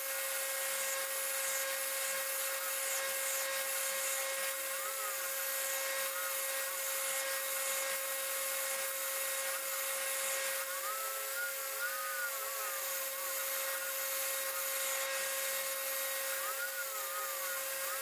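2x72 belt grinder running with a slightly used 60-grit ceramic belt, grinding the profile of a 5160 steel knife blank. A steady motor tone under the hiss of steel on the belt, with a few short rising-and-falling whines as the blade is pressed and worked along the belt.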